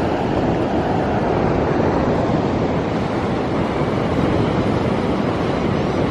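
Steady rushing noise of ocean surf, with no breaks or separate sounds.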